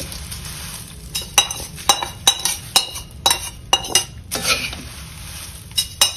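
Metal spoon scraping and tapping against metal pans while emptying a small pan of hot oil tempering onto poha chivda. The sound is a series of sharp, ringing clinks that starts about a second in, with a rustling scrape through the flattened rice partway through.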